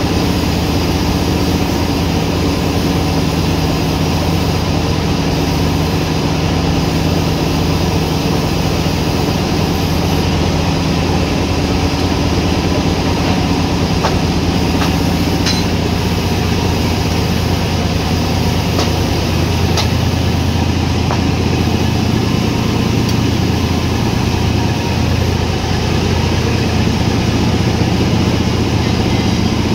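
Sawmill machinery running steadily with an even motor drone, and a few faint ticks about halfway through.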